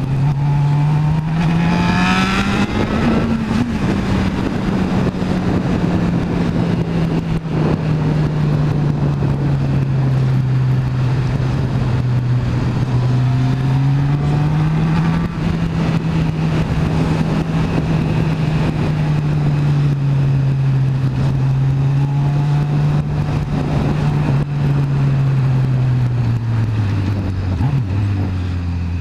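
Honda motorcycle engine running under way, with wind rushing over the bike. The revs climb about two seconds in, ease off and pick up again midway, and drop near the end.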